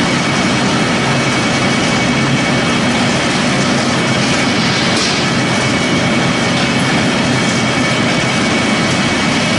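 Pellet mill running with its motor and conveyor: a loud, steady mechanical noise with a faint high whine.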